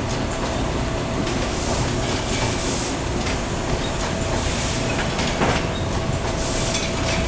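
Automatic blanket packaging machine running: a steady low mechanical rumble with a faint constant hum, and short hisses recurring every second or two as it cycles, plus a sharper click about five seconds in.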